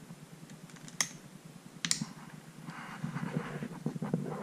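Two sharp clicks, about one and two seconds in, then a soft crackling sizzle from about three seconds in as an aspirin tablet starts to melt under a hot soldering iron pressed onto an enamelled motor wire.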